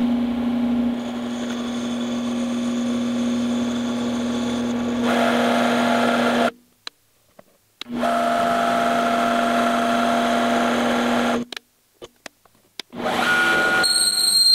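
Eastwood mini lathe running with a steady motor hum as a cutting tool works a plastic rod, the cutting noise growing louder about a third of the way in. The sound stops twice as the cut jams with chips and picks up again each time, with a high whine added near the end.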